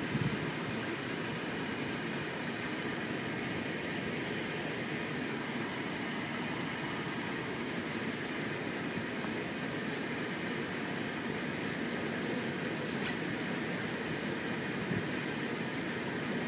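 Steady, even rumble and hiss of a vehicle engine idling, with a light knock near the start and another near the end.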